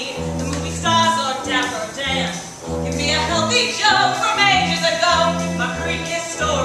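Stage performers singing a lively show tune with vibrato over instrumental accompaniment, with a steady bass line moving note to note.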